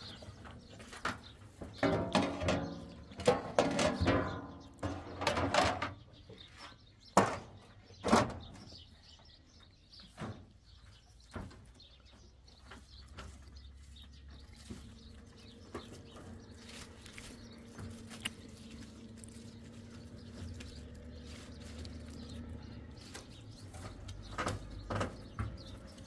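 Clanking and rattling of large metal trays being handled and set down, with footsteps on corrugated metal roof sheeting; a cluster of loud knocks in the first several seconds, then a few lighter knocks near the end.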